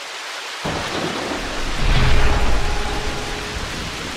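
Thunderstorm sound effect: steady rain hiss, with a deep thunder rumble that breaks in suddenly about two-thirds of a second in, peaks around two seconds in, then eases off.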